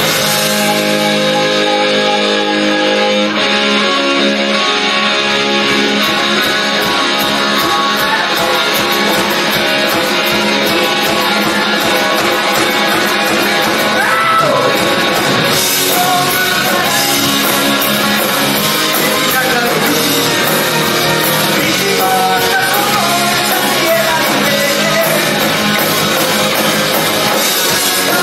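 A rock band playing live: guitars, bass guitar and drum kit, with a voice singing over them.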